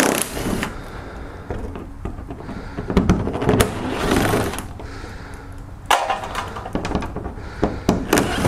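Small cordless driver with an 8 mm socket spinning out the splash-shield bolts in several short runs, with clicks and knocks from the socket and bolts against the plastic shield.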